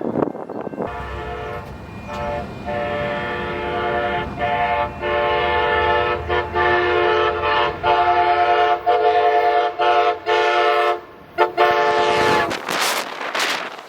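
Amtrak Pacific Surfliner train's air horn played as a horn show: a multi-tone chord starting about a second in, sounded as a long run of short and longer blasts with many quick breaks, over the low rumble of the moving train. It stops about a second and a half before the end, leaving a rush of wind noise.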